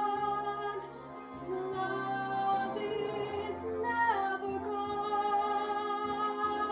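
A girl singing long held notes for a recital piece over a musical accompaniment, her voice sliding down in pitch about four seconds in.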